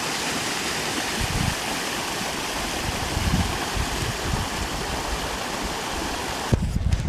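Steady rushing of creek water, with low gusts of wind hitting the microphone now and then. The rushing cuts off abruptly near the end, leaving a few dull thumps.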